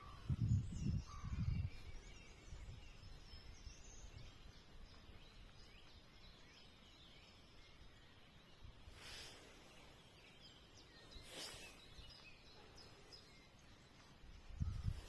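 Faint countryside ambience with small birds chirping now and then. There are a few low thumps in the first two seconds and two brief whooshes later on.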